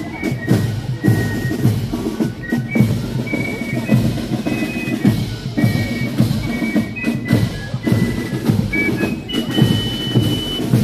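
Marching band music played live, with a steady bass drum and snare beat under short, high held notes.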